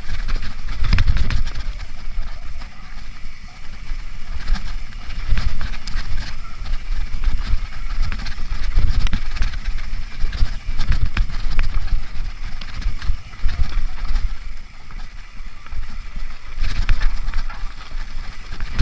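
Mountain bike riding fast down a dirt forest singletrack. Wind buffets the camera's microphone in gusts, with tyre noise over dirt and leaves and frequent short rattles and clicks from the bike over bumps.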